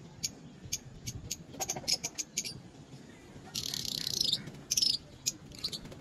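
Lovebird calling: a quick series of short, sharp, high-pitched chirps, with a longer burst of shrill chatter about halfway through.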